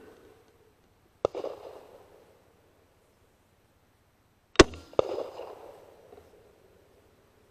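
Three sharp cracks: one about a second in, then a close pair a little past the middle, the first of the pair the loudest. Each trails off over about a second.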